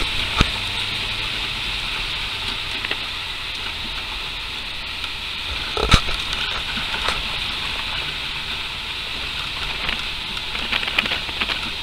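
A car driving slowly, heard from inside the cabin: a steady low rumble of engine and road under a steady high hiss, with a sharp knock about six seconds in.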